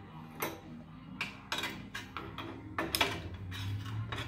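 Hand tools knocking and scraping on a metal table saw top: a string of short clatters as a brush is set down and a screwdriver is picked up and scraped along the table's edge.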